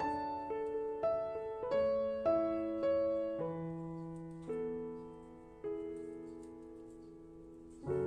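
Background piano music: single notes and chords struck at a gentle pace, with the last notes held and fading.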